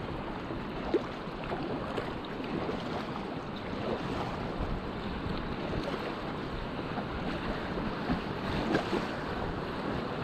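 Fast river current rushing and splashing around a packraft riding choppy water, a steady wash of water noise with wind buffeting the microphone.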